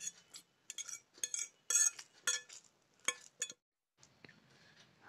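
Cutlery clinking and scraping against a ceramic plate as pasta is scooped up: a quick run of sharp clinks with a short ring, which stops abruptly about three and a half seconds in.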